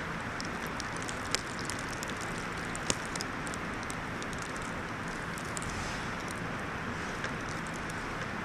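Steady rushing outdoor noise in a snowstorm, dotted with small crisp ticks, with two sharper clicks about one and a half and three seconds in.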